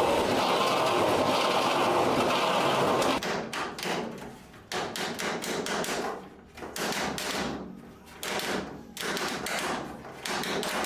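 Electric drill boring conduit holes through aluminium wing ribs: it runs steadily and then stops suddenly about three seconds in. It is followed by a series of short, uneven rasping bursts and knocks from the drilling and conduit work.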